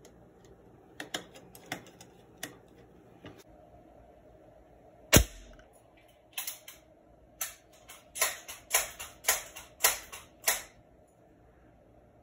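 A few faint clicks of screwdriver work on a pump-up air rifle's action, then a single sharp air-rifle shot about five seconds in, the loudest sound. About ten irregular sharp clicks follow over the next four seconds.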